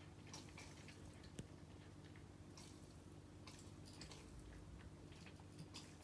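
Faint, irregular crunching clicks of a cat chewing from its food dish, over a low steady hum.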